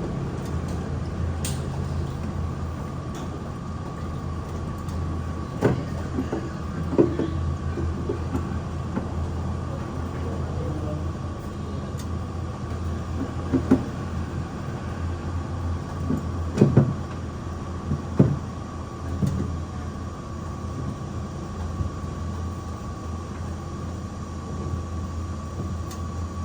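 Steady low mechanical hum with a faint steady whine above it, broken by a handful of short knocks and clinks.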